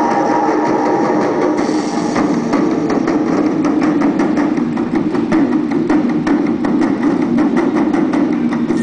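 Gymnastics floor-routine music playing, in a percussion-heavy passage of rapid, dense hits over a held low note.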